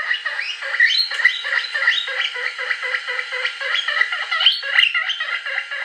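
Recorded guinea pig wheeking played from an MP3 player through a small, newly built speaker: a fast run of short, rising squeaks, thin with no bass and really loud.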